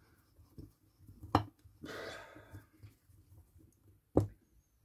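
Handling noise from reassembling a soldering station: two sharp knocks about three seconds apart, with a short scraping rustle between them, as screws are put back into the board's mounts.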